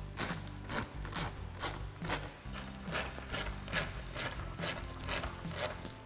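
Hand ratchet with a T25 Torx socket clicking in a steady rhythm, about two to three strokes a second, as Torx screws are run in.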